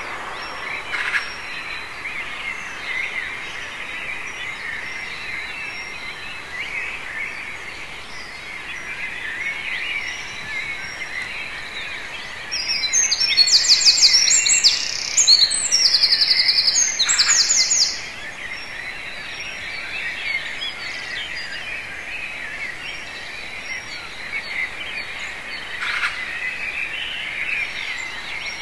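Pre-dawn chorus of many songbirds calling and singing together. For about five seconds in the middle, one nearby bird sings a loud, rapid, high trilling song over the rest.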